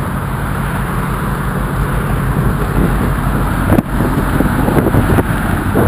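Steady rush of road traffic passing on a bridge deck, with wind buffeting the microphone.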